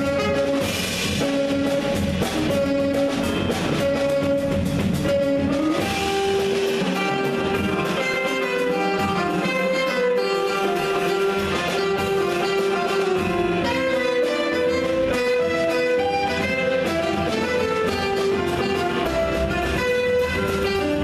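Small jazz group playing: held melody notes that shift pitch every second or so over a full band texture of guitar, bass and drums.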